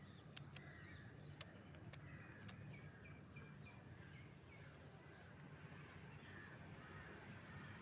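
Near silence: faint outdoor ambience with a few light clicks in the first second and a half and a faint run of short bird chirps in the middle.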